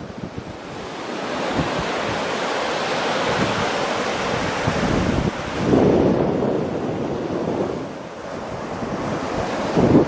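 Wind buffeting the camcorder's microphone over a steady rush of ocean surf, with heavier gusts about six seconds in and again near the end.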